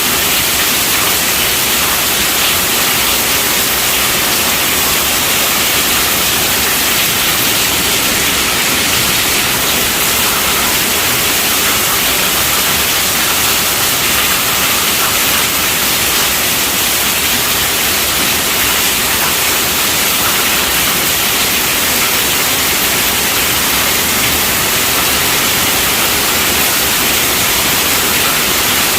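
Steady rainfall: an even, unbroken hiss, with no single drops, thunder or pauses standing out.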